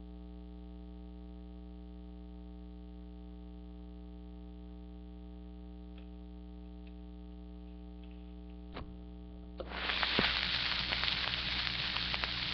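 Steady electrical mains hum with a stack of overtones, then a click just before 9 seconds in. About a second later, a hiss with many small crackling ticks sets in, typical of a 45 rpm record's surface noise as playback starts.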